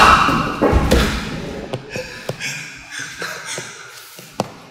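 Judoka grappling and falling on a padded judo mat: a loud burst at the very start, then a heavy thud of a body hitting the mat within the first second, followed by scuffling and a few sharp taps on the mat.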